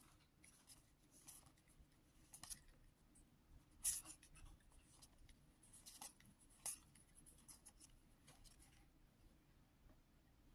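Faint, irregular swishes and flicks of Babylon 5 trading cards being slid one at a time across each other in the hand, a short scrape every second or so.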